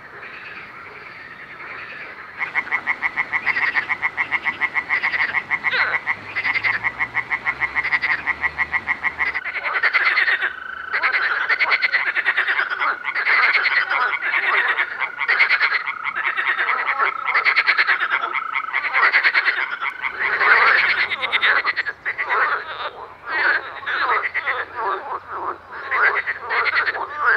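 A chorus of frogs croaking from a reedy pond. The calls come in fast pulsing trains that overlap, starting about two seconds in and going on thickly from then on.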